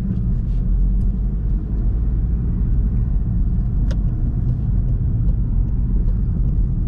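Steady low rumble of a car's engine and tyres heard from inside the cabin while it drives along a road, with one brief click about four seconds in.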